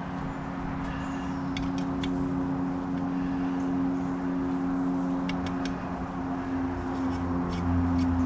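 An engine running steadily, with a few light clicks over it; the engine grows louder near the end.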